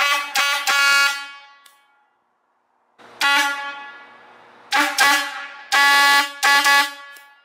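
A small, stubby ambulance air horn sounded in short blasts on one steady pitch. Three quick blasts open the sequence, then about two seconds of silence, then five more blasts; the last two are held about half a second each. Each blast trails away as it dies.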